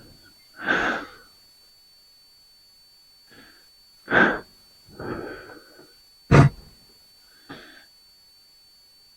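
A man's short, heavy breaths and sighs, about half a dozen of them spread out, with one sharp knock about six seconds in.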